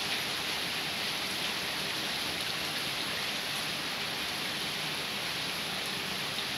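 Heavy rain pouring steadily, with runoff water streaming down a sloping yard. An even, unbroken hiss.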